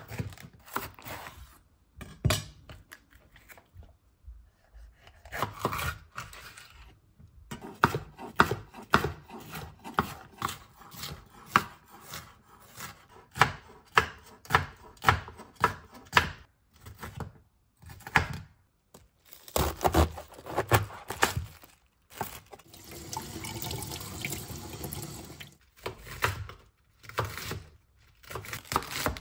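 Chef's knife chopping bell pepper and cabbage on a wooden cutting board: runs of quick, irregular knocks with short pauses between them. For about three seconds near the end a steady rushing hiss runs under the chopping.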